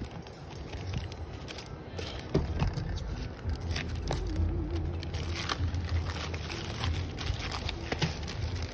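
Plastic courier mailer bag crinkling and rustling as it is picked up, turned over and slid across a silicone work mat, with irregular crackles and small taps, over a steady low hum.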